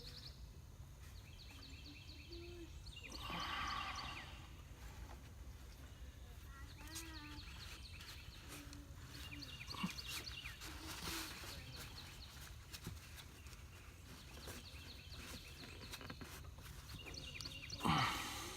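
Quiet outdoor background with a steady low hum and scattered faint bird chirps, and a louder falling-pitch sound near the end.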